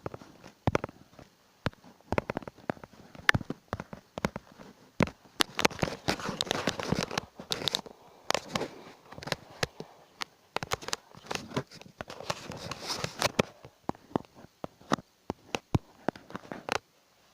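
Handling noises during food preparation: irregular clicks and knocks, with two stretches of crinkling, rustling noise a couple of seconds each.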